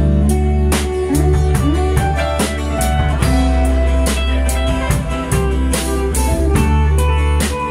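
Live rock band playing an instrumental passage: guitar lines over bass and a drum kit keeping a steady beat, with no singing.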